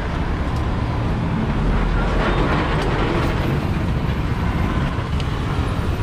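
Road traffic passing close by: a steady rumble of cars and lorries.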